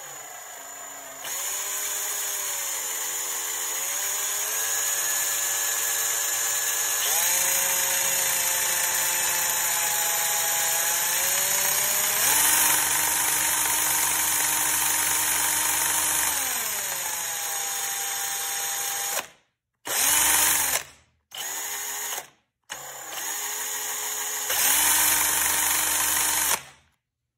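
DeWalt XRP cordless drill running a two-stroke chainsaw engine cutaway by its crankshaft, up to about 2000 rpm. The motor whine steps up and down in pitch as the speed changes. It stops and restarts three times in quick succession near the end, then cuts off.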